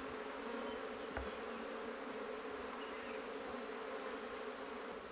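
A colony of honeybees buzzing around an opened hive and a frame of comb lifted out of it, a steady, even hum. A faint knock about a second in.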